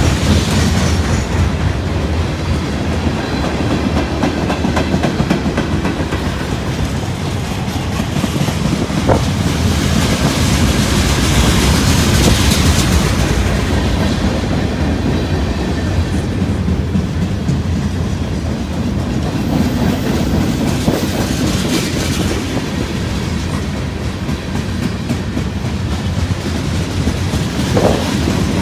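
Freight train rolling past, its cars clattering steadily over the rail joints, with a brief squeal or two from the wheels.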